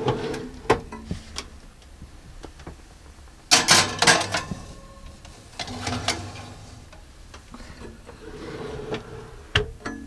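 Dometic campervan oven being loaded: a click as the door opens, clattering and scraping as a baking tray is slid onto the metal rack, then a sharp knock near the end as the door shuts.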